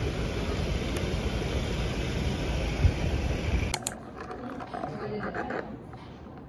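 Steady city street traffic noise while walking on a sidewalk, cutting off suddenly about three and a half seconds in to the much quieter background of a room with a few faint small sounds.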